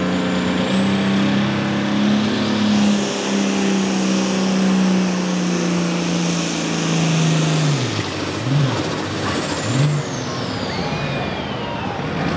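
Pro Farm pulling tractor's turbocharged 466-cubic-inch diesel at full throttle under load, with a high turbo whistle climbing over the engine. About eight seconds in the throttle is let off: the engine drops away and the turbo whistle winds down, followed by two short throttle blips.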